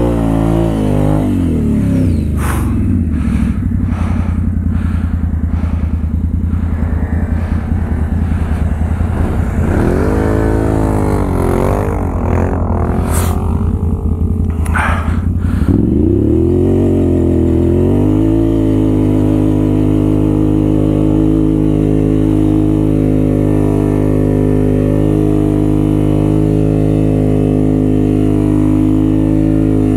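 Can-Am Renegade 1000 XXC ATV's Rotax V-twin engine running under load, its revs falling and rising repeatedly through the first half with a few sharp knocks, then holding steady for the last twelve seconds or so.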